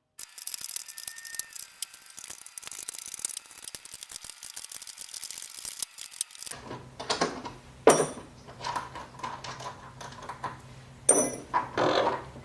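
Small metal hand tools and hardware clicking and rattling rapidly as the nuts holding a motorcycle Tour-pak backrest are worked off. Then comes a stretch of handling clatter, with two sharp knocks about 8 and 11 seconds in.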